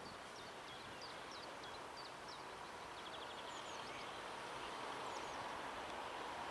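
Small birds chirping with short repeated high notes and a quick trill about three seconds in, over a faint hum that grows slowly louder as the SA133 diesel railcar approaches.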